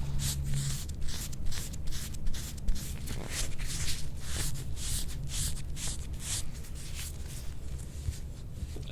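Rhythmic rasping strokes of a soft-tissue scraping tool drawn over the skin of the back and ribs, about two to three strokes a second, thinning out near the end.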